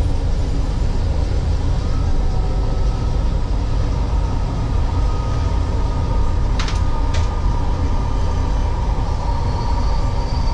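MRT Line 3 train running on its track as it pulls into a station, heard from inside the car: a steady heavy rumble with a faint whine. Two sharp clicks about half a second apart come about two-thirds of the way in, and a high whine rises near the end.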